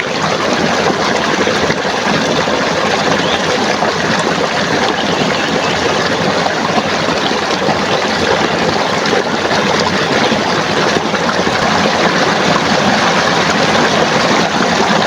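Loud, steady rush of flowing stream water.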